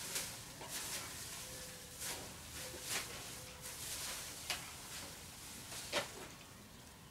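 Thin plastic masking film rustling and crinkling as it is handled and smoothed down by hand, with a sharp crinkle every second or so; the sharpest comes near the end.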